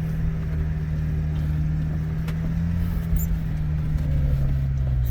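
Geo Tracker's four-cylinder engine running in four-wheel-drive low through deep snow, a steady drone that drops slightly in pitch near the end.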